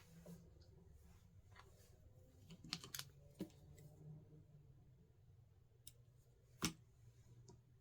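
A few faint, sharp clicks and taps from small objects being handled on a work surface: a quick cluster about three seconds in and one louder click near the end, over a low steady hum.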